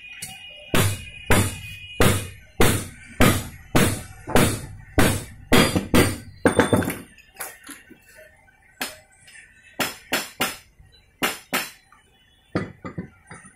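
Hammer blows on a steel pipe drift, driving a bearing down onto a Kawasaki 175 motorcycle crankshaft: sharp metallic strikes with a slight ring, about two a second for some six seconds, then a few lighter strikes in twos and threes.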